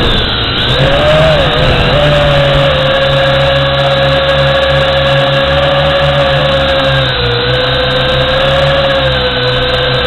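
Drone's motors and propellers running in flight: a steady high whine whose pitch wavers with the throttle, dipping at the start and rising about a second in, over a low hum, heard up close from the drone's own camera.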